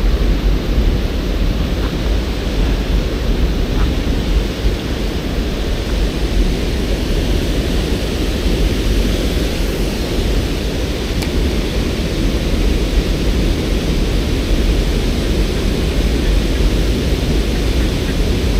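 Steady rushing of river white water below a dam, a loud, even noise with a deep rumble underneath.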